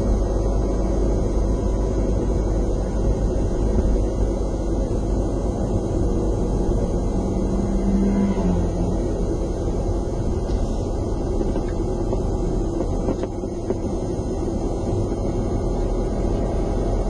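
A car being driven along the road: a steady low rumble of engine and tyres, with a short low hum about eight seconds in.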